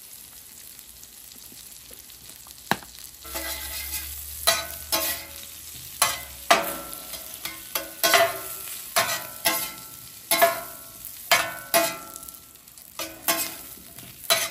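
Metal griddle spatula and bench scraper scraping and clanking on a hot steel flat-top griddle while tossing sizzling potatoes. After a low sizzle, sharp strokes come about one to two a second from about three seconds in, each with a short metallic ring.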